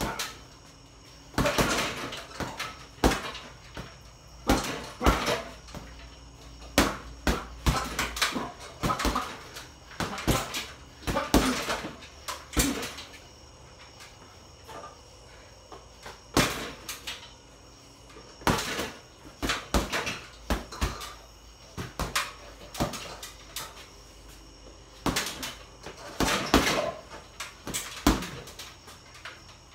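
Boxing gloves punching a hanging heavy bag: sharp thuds in quick combinations of a few punches, with short pauses between them and a quieter stretch about halfway through.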